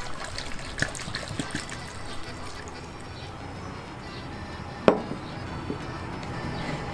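Water poured from a glass bottle into a pot of cubed pumpkin, splashing and trickling for about the first two seconds, then dying away. About five seconds in, a single sharp knock.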